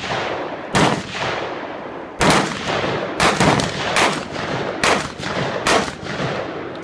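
Gunshots from a competition stage: seven shots at an uneven pace, roughly a second apart with a quick pair near the middle. Each shot trails a long echo.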